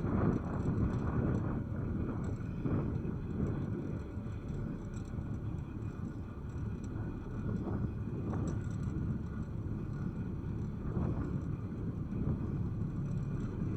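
Wind buffeting the microphone: a low rumble that swells and eases in gusts.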